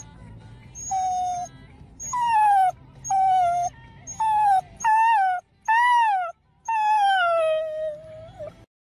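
A dog whining: a run of about seven high whimpers, most of them sliding down in pitch, the last one long and drawn out.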